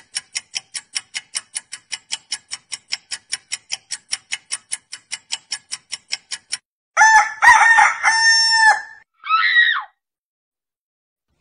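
Clock ticking, about five ticks a second, cutting off about six and a half seconds in. It is followed by a rooster crowing: one long call, then a second shorter one that falls in pitch. Together they are edited-in sound effects marking time passing overnight.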